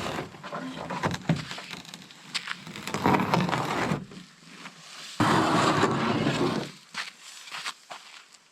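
Knocks and scraping from handling a frost-covered canoe, with two longer scraping stretches about three and five seconds in.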